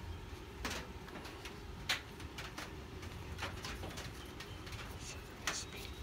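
Hand screwdriver turning a screw through a small steel bracket held in a bench vise, giving scattered sharp metal clicks. A bird cooing goes on behind it.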